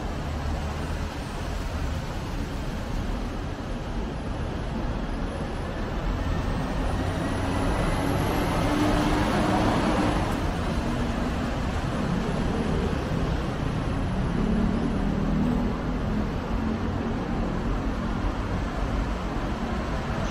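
Steady city road traffic, swelling as a vehicle passes about eight to ten seconds in.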